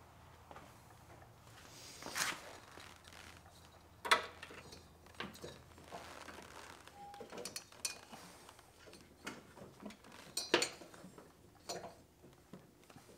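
Scattered light metal clinks and knocks from hands working a deck belt around the steel pulleys and idlers of a zero-turn mower deck, the sharpest about four seconds in and again about ten and a half seconds in.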